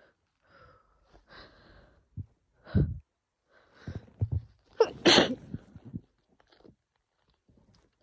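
A woman sneezing harshly in a fit, with quick gasping breaths between the sneezes. The loudest sneeze comes about five seconds in. She puts the fit down to a cold and a strong laundry detergent.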